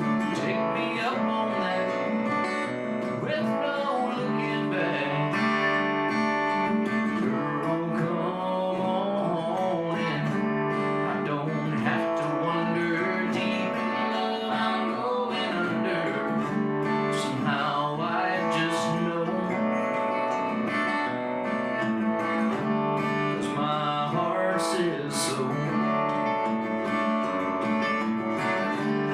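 Live acoustic country music led by strummed acoustic guitar.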